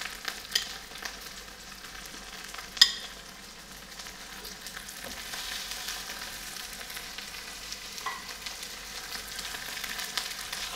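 Raw chicken pieces sizzling in olive oil with chopped onions in a frying pan as they start to sauté. Metal tongs click against the pan a few times, with one sharp click about three seconds in. The sizzle grows a little louder after about four seconds.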